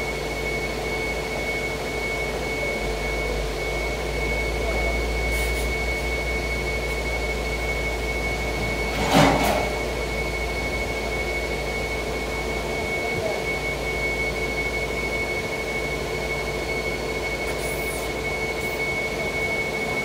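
Crawler crane's diesel engine running steadily at a construction site, with a constant high whine over a low rumble. One short knock about nine seconds in.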